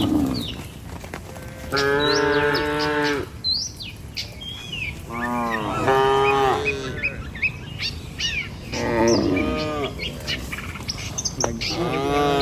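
Cattle mooing: four long calls, one after another about every three seconds, each about a second or more. Small birds chirp briefly between the moos.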